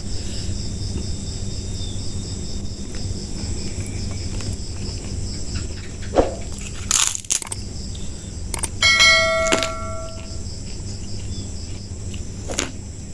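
Crickets chirping steadily in the background, with a few short clicks and crunches of eating. About nine seconds in, a single ringing bell-like tone sounds for about a second and a half and fades.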